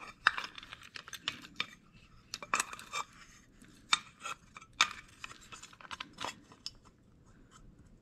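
Metal parts of a VW Beetle front hood latch clicking and clinking as a painted steel cover piece is handled and fitted onto the latch by hand. The clicks are irregular and come in quick clusters, thinning out near the end.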